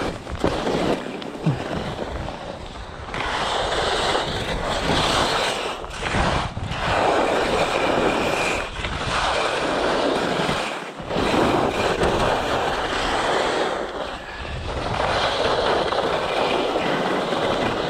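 Skis scraping across firm, chalky snow on a steep slope, in about four turns that each swell for a couple of seconds and fade, with wind on the microphone.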